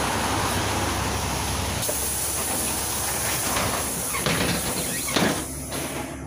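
Pneumatic passenger doors of a LiAZ 5292 city bus closing: a hiss of compressed air, then two sharp thuds as the door leaves shut, about four and five seconds in. The bus's YaMZ-53624 gas engine idles low underneath.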